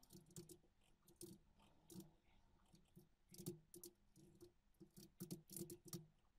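Faint computer keyboard typing: irregular key clicks at an uneven pace, a few close together about three and a half seconds in and a busier run near the end.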